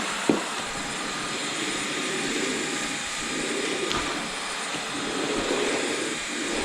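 LG Kompressor cordless stick vacuum running steadily in turbo mode, sucking up spilled rice and flour from a hard floor. A sharp click comes about a third of a second in.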